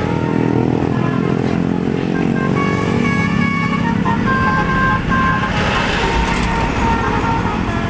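Bus 'telolet' multi-tone horn playing short melodic notes in a quick tune over the low rumble of the bus's engine; the horn notes come in short bursts and thin out in the last few seconds.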